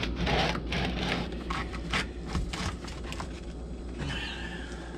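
A screwdriver prying and scraping at a stuck part in a Stihl MS250 chainsaw: irregular clicks and short scrapes, with a longer scrape about four seconds in, over a steady low hum.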